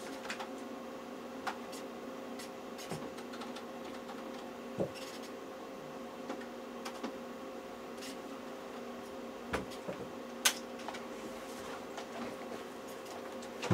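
Steady electrical hum of room equipment with scattered short clicks and taps of a computer mouse and keyboard in use; one sharper click about ten and a half seconds in.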